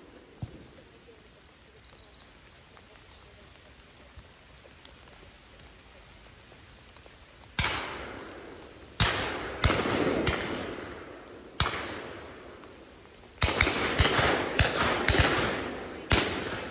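Shotguns firing on a driven duck shoot. After several quiet seconds come a few separate shots, then a quick volley of shots from several guns near the end, each shot trailing off in a rolling echo.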